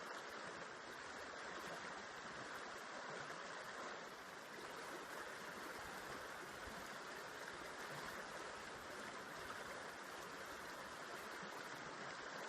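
River water flowing, a steady, even rushing.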